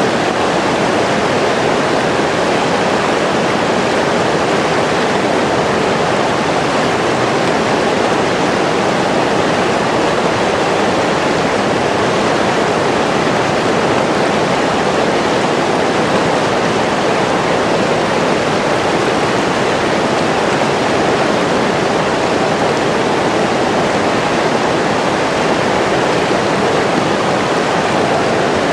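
Rushing river rapids: a loud, steady rush of whitewater with no break.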